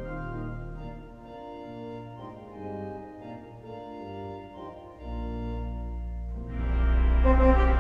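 1911 Forster & Andrews pipe organ, rebuilt by Compton in 1951, playing held chords in a fanfare. A deep pedal note comes in about five seconds in, and the full organ enters loud and bright about a second and a half later.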